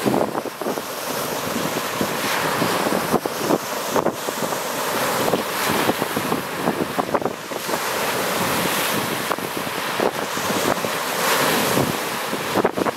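Lake Superior surf breaking and washing on a rocky, pebbly shore in a steady loud rush that swells and eases, with wind buffeting the microphone.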